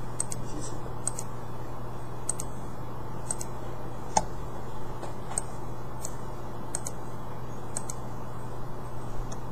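Irregular clicks of a computer mouse, roughly one a second, over a steady low electrical hum.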